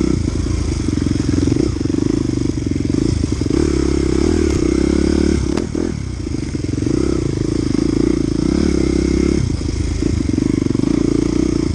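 Dirt bike engine heard from on the bike, pulling and easing off with the throttle as it rides a rough woodland trail, with rattling from the bike. A sharp knock about five and a half seconds in.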